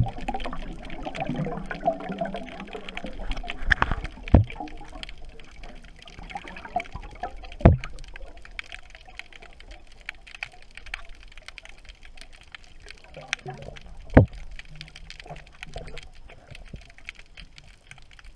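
Underwater recording of a freediver exhaling a bubble ring: air bubbling and gurgling for the first few seconds, then quieter water noise broken by a few sharp clicks.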